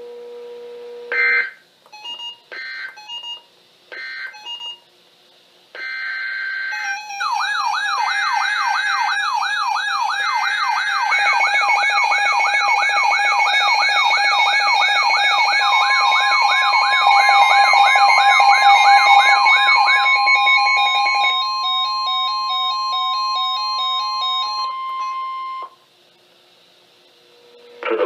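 Several weather alert radios sounding their alarms at once: a fast, repeating sweeping warble layered with steady and pulsing electronic beeps, and a long steady single tone joining partway through. Short digital data chirps from the SAME alert code come first, and the alarms cut off in stages near the end.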